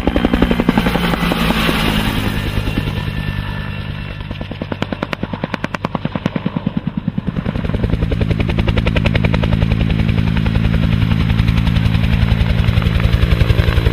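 Helicopter sound: a fast, even rotor-blade chop over a steady engine drone. It dips a little in the middle and grows louder again from about eight seconds in.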